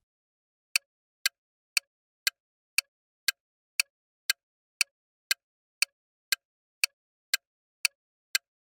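Countdown timer sound effect ticking steadily, about two sharp ticks a second, marking the answer time for a quiz question.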